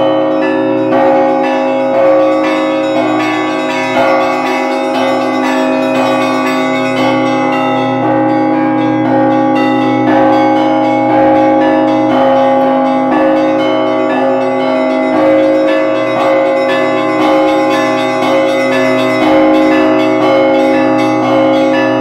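Russian Orthodox church bells rung by hand from clapper ropes, heard close up: small bells struck in quick repeating patterns over the sustained ring of larger bells.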